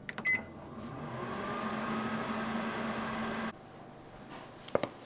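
Microwave oven running: a click and a brief beep at the start, then a steady hum with fan noise that cuts off suddenly about three and a half seconds in, followed by a couple of sharp clicks near the end.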